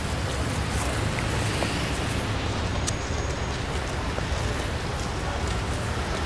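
Steady city traffic rumble: a low, even drone of passing vehicles.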